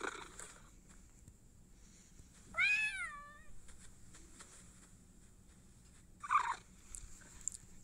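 Two meows from Google's 3D augmented-reality cat: a clear meow that rises and falls in pitch about three seconds in, then a shorter, lower meow a little after six seconds.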